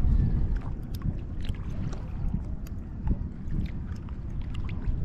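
Wind buffeting the microphone over shallow seawater at the shore, with scattered small clicks and splashes.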